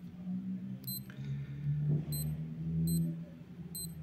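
Synoke digital watch giving a short high beep each time a mode button is pressed, four beeps roughly a second apart as it steps through its modes. A low, wavering hum, like a voice humming, runs underneath.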